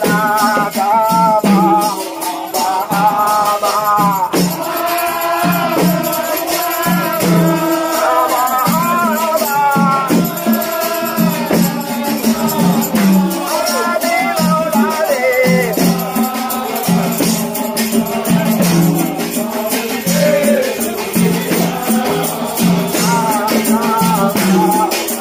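Men singing a chant over hand-held frame drums beating a steady rhythm, with a rattling sound keeping time.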